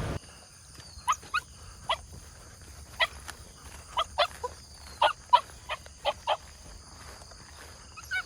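Beagle barking: about a dozen short, sharp barks, irregularly spaced.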